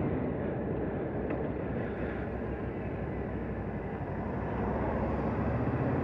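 Honda VFR800's V4 engine running as the motorcycle rides along, mixed with road and wind noise, growing a little louder near the end.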